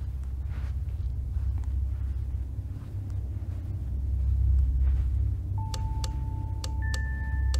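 Horror soundtrack: a low, steady drone, joined about two-thirds of the way through by ringing bell-like notes and a few sharp ticks, with a second, higher note coming in just before the end.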